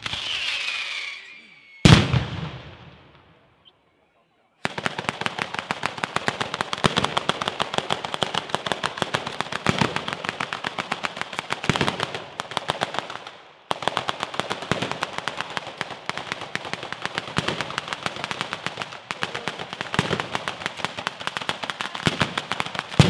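Ground-level firework battery (batteria) going off: a whistle and a loud bang in the first two seconds, then after a pause of about a second a long run of rapid-fire firecracker reports, many each second, with a brief break about two-thirds of the way through. It ends in a loud bang.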